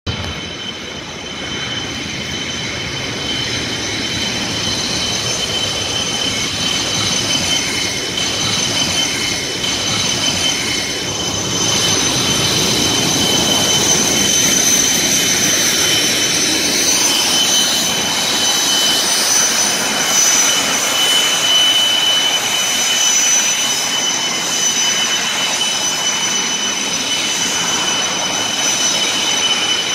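Gas-turbine jet engine of a TMG-3A-01 heat machine mounted on an Ural truck, blasting out hydrogen peroxide disinfectant mist: a steady rushing blast with several high whining tones over it. It grows louder over the first half as the machine comes closer.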